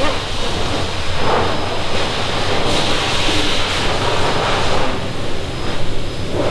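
Loud, steady rushing noise with a low rumble underneath and a faint thin high whine, swelling a little in places.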